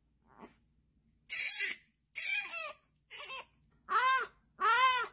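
French bulldog puppy howling: a few short, breathy, raspy yips, then from about four seconds in two clearer little howls, each rising and falling in pitch.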